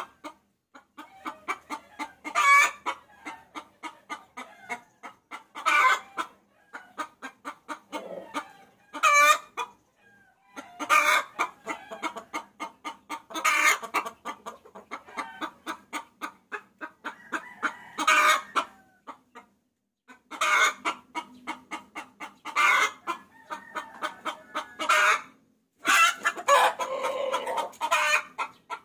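A hen cackling, used as a lure call for roosters: rapid runs of short clucks broken every few seconds by a louder, higher cackle note, with a few brief pauses.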